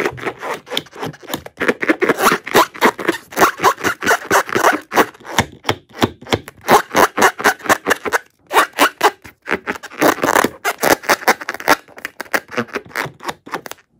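Rubber balloon being squeezed and rubbed in the hands: a fast, dense run of squeaks and crackles, with a short break about eight seconds in and a sudden stop near the end.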